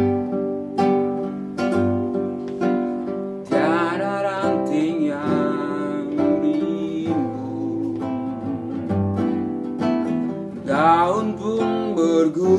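Acoustic guitar strumming the chords of a song. About three and a half seconds in, a lead melody with wavering, sliding pitch joins it.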